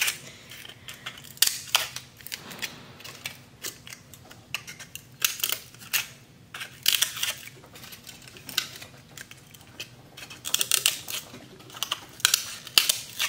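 Large scissors snipping slits into egg carton cups: irregular sharp snips and crunches, some coming in quick clusters.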